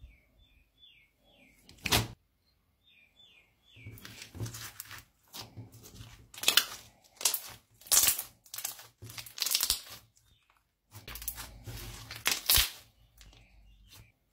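Thick metallic glitter slime being pressed and squished by hand on a tabletop: irregular wet crackling, with several sharp pops.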